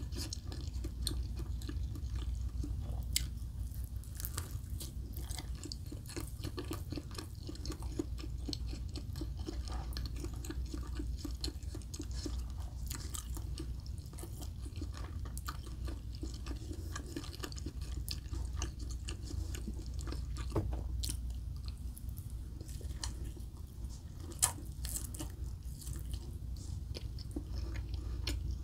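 Close-miked chewing of Spam, with many small wet mouth clicks and a few sharper clicks that stand out, the loudest late on. A steady low hum runs underneath.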